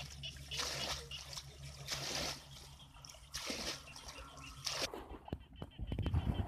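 Muddy water being bailed with a plastic bucket and flung out, splashing about four times, roughly once every second and a half. Near the end, a low rumble and a few thuds.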